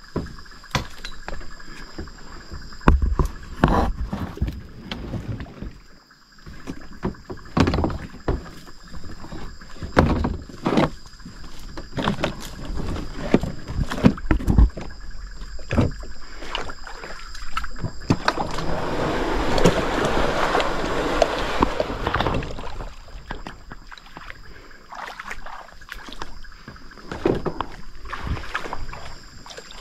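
Kayak on the water, with irregular paddle splashes and knocks. A longer rush of water comes about two-thirds of the way through.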